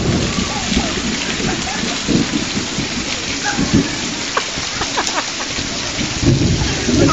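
Heavy rain pouring down in a steady hiss, broken by several low thumps, with faint distant voices.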